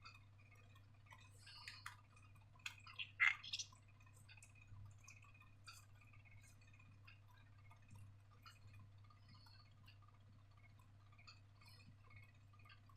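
Faint, scattered small clicks and taps, a few clustered near the start, over a low steady hum.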